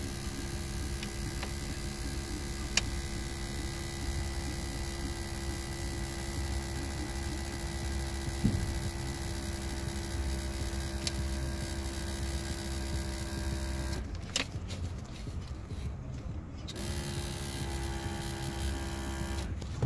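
Pickup truck engine idling, heard inside the cab as a steady hum.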